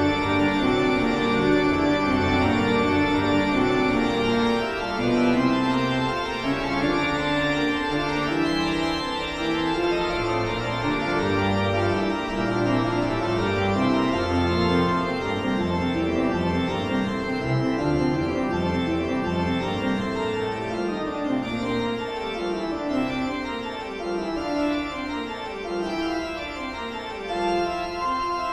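Background music of slow, held organ chords that change every second or two.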